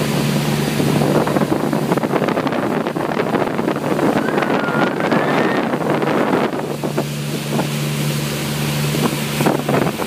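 Passenger ferry under way: the engine's steady low hum, which drops away for a few seconds mid-way, under the rush of water from the wake and wind on the microphone.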